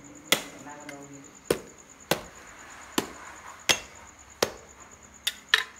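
Large knife chopping into a raw pig's head while it is deboned: about eight sharp chops at irregular intervals, two in quick succession near the end.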